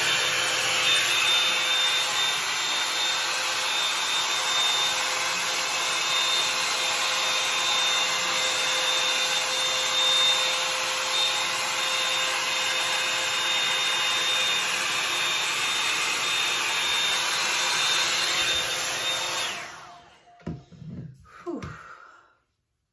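Bed Head Blow Out Freak hot-air volume brush running: its dryer motor whines and blows air steadily, the whine rising briefly as it spins up at the start. It is switched off about 19 seconds in.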